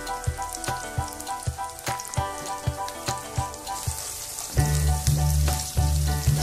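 Sliced sausages and sambal sizzling in hot oil in a wok as they are stirred with a spatula. Background music with a steady beat plays over it, and a loud bass line comes in about two-thirds of the way through.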